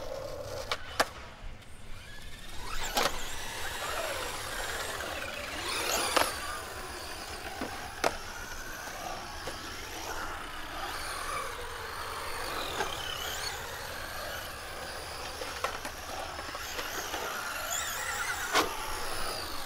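Electric radio-controlled truck driving around a concrete bowl, its motor whining up and down in pitch as it speeds up and slows. A few sharp clacks come as it lands or strikes the concrete.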